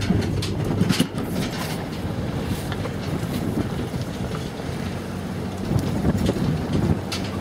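Car driving on a rutted dirt track: the engine runs under a steady rumble of tyres and body, with wind buffeting the microphone held out of the window. A few sharp knocks come near the start and again near the end.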